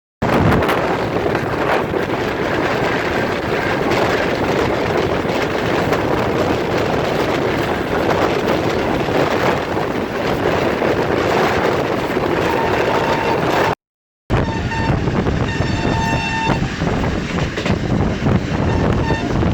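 Sir Syed Express train running at speed, a steady loud rush and rattle of wheels on rail. After a brief cut about two-thirds of the way in, the train's horn sounds in a few steady blasts over the noise near the end.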